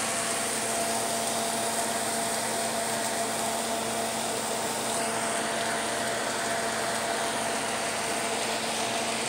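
Steady whir of a fan running, an even hiss with a low constant hum that does not change.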